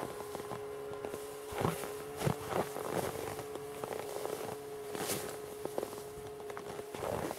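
A few scattered crunches of boots and handling on packed snow as a person shifts about and bends down, over a steady humming tone that holds throughout.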